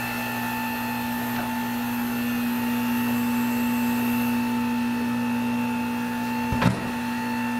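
Hunter Revolution tire changer humming steadily with a constant electric-motor drone, with one sharp knock near the end.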